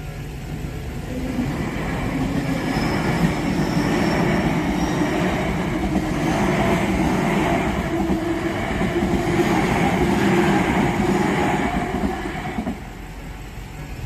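A Tobu Tojo Line electric train passing over a level crossing. Its running noise builds over the first couple of seconds, holds steady, and drops away suddenly near the end as the last car clears, with the crossing's warning bells ringing underneath.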